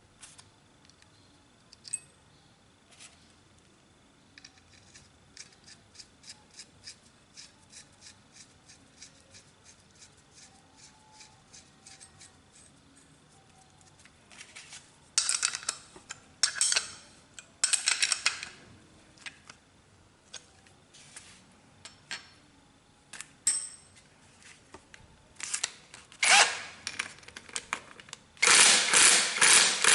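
Hand tools working on the motorcycle's engine-mount bolts: a run of light, evenly spaced clicks, then several louder bursts of rapid clicking, each lasting a second or so, the longest near the end.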